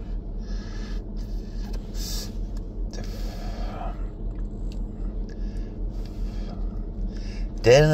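A man breathing and drawing on a cigarette, with short breathy puffs every second or so over a steady low hum. Near the end a loud, long, chant-like sung note starts.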